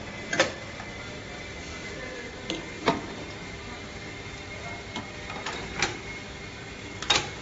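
Vertical injection molding machine running with a steady hum and a faint high whine, while hoses and parts are handled at its open mold with sharp clacks every second or two. The loudest clacks come near the start, a little before three seconds in, and near the end.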